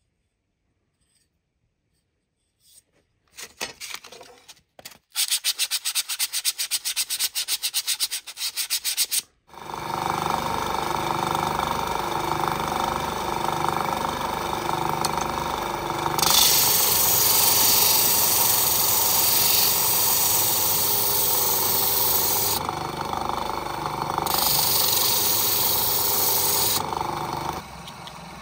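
Rapid rubbing strokes for a few seconds, then a small bench disc sander's motor running steadily. Wood is pressed to the abrasive disc twice, a few seconds each time, adding a loud sanding hiss. The machine quiets near the end.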